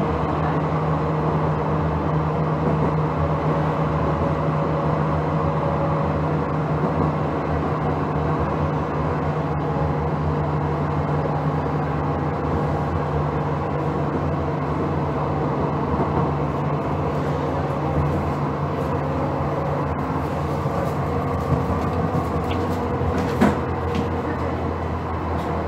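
Steady hum of a standing KVB B100S Stadtbahn car (1977 build, 750 V DC), its onboard electrical equipment running with several even tones. One short sharp click comes about 23 seconds in.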